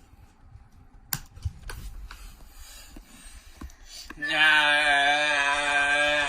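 A few faint clicks, then about four seconds in a loud held note of synthetic-sounding singing starts, one steady pitch with many overtones.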